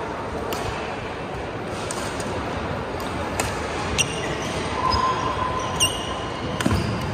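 Badminton rally: sharp racket strikes on the shuttlecock about once a second, with footfalls and a brief shoe squeak on the wooden court, echoing in a large hall over a steady background of crowd noise.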